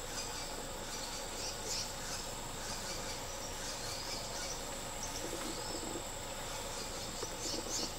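Steady high-pitched insect chorus, typical of crickets or cicadas, with a few short bird chirps scattered over it.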